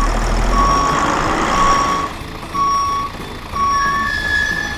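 Truck reversing alarm beeping about once a second over a running engine, then a higher steady tone near the end.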